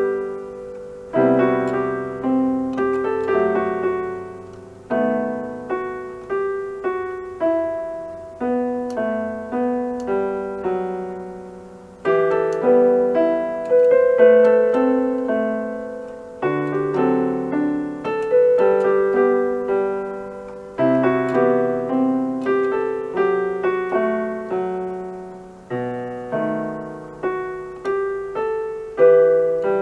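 Electronic keyboard with a piano voice, played by a beginner: a slow melody over held chords, each note fading after it is struck.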